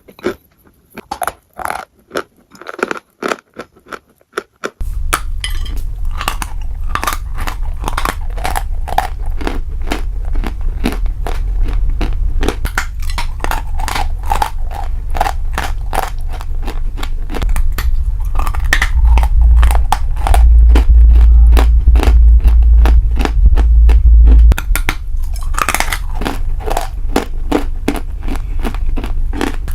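A person chewing crunchy food close to the microphone: rapid, dense crunching clicks throughout. From about five seconds in, a heavy low rumble runs underneath, loudest for several seconds past the middle.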